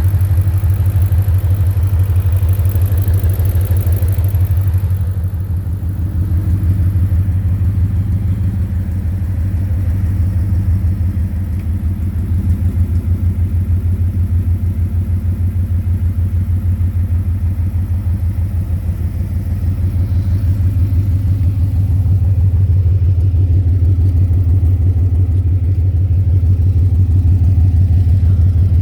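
2010 Ford Mustang GT's 4.6-litre V8 idling steadily with a fast, regular knock. The owner suspects a loose torque converter, and others have suggested rod knock or lifter tick.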